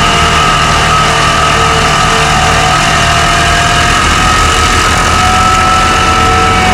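Stump grinder's engine running steadily at a loud level, with a steady whine over it.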